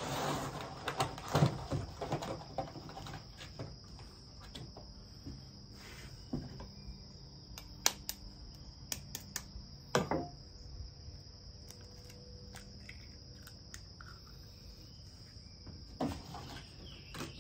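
Steady high-pitched insect chorus, with scattered light clicks and taps of kitchen handling, the sharpest about halfway through as an egg is cracked into a steel bowl of flour.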